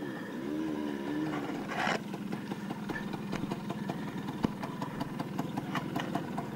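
Vintage two-stroke Vespa scooter engine running at low revs: its pitch rises and falls for the first second and a half, then it settles into a ragged, pulsing idle. A short burst of noise comes about two seconds in.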